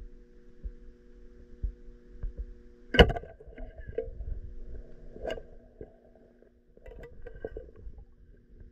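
Muffled knocks and clicks heard underwater: a thin pole striking river rocks. The loudest knock comes about three seconds in, with a few lighter ones after, over a steady low hum.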